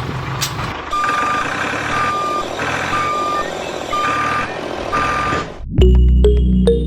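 Vehicle reversing alarm beeping about once a second, five beeps over steady machine noise, then music starts near the end.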